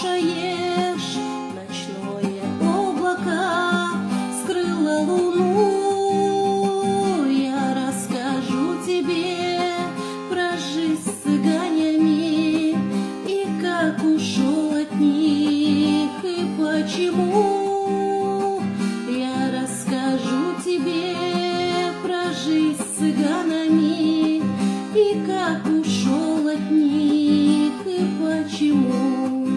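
Acoustic guitar strummed and plucked as a song accompaniment, with a woman singing a slow melody over it.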